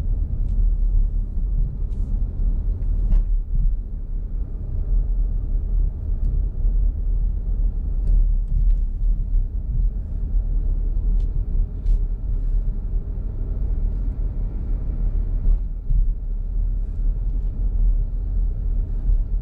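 Steady low rumble of a car driving on a paved road, heard from inside the cabin: tyre and engine noise, with a few faint clicks scattered through it.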